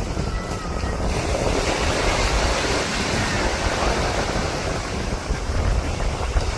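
Waves washing on the beach, with wind blowing across the microphone as a steady rumbling hiss that thickens about a second in.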